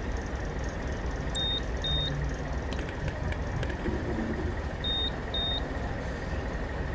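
Bus engine running with a steady low rumble, the diesel sound the title likens to a truck. Two pairs of short, high electronic beeps sound over it, one pair about a second and a half in and another about five seconds in.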